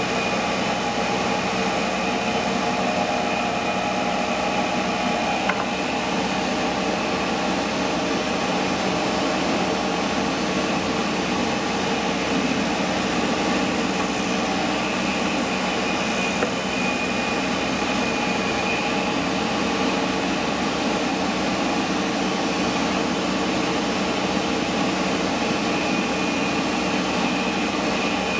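Kellenberger 600U universal cylindrical grinder running, its motors and table drive giving a steady hum and whine under an even hiss.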